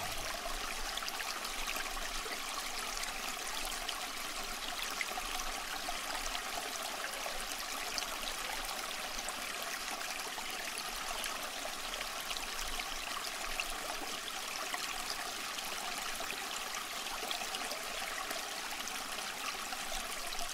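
Aquarium water trickling and splashing steadily.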